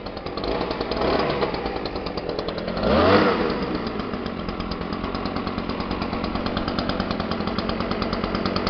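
Stihl SH86C blower's small two-stroke engine idling steadily after servicing, with one brief blip of the throttle about three seconds in that rises and falls in pitch and is the loudest moment.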